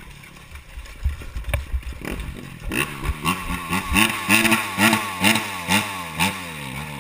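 Dirt bike engine revved in quick repeated blips, the pitch rising and falling several times, starting about three seconds in. Before that, a few splashes of people running through shallow water.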